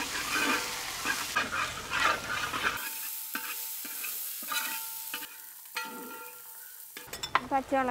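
Metal spatula stirring and scraping across a large aluminium pan in repeated strokes, with dried chillies, curry leaves, garlic and ginger sizzling in hot oil. Faint metallic ringing from the pan comes through in the middle stretch.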